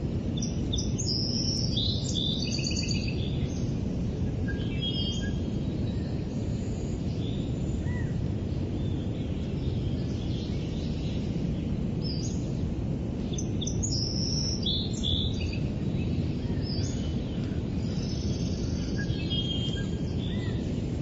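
Steady pink noise, a low even hiss, under a forest recording of small birds chirping and calling in short runs near the start, about two-thirds through and near the end.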